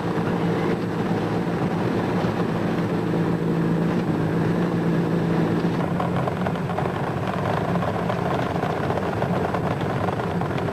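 UAZ-452 van's engine running at a steady speed, a constant low drone, as the van drives.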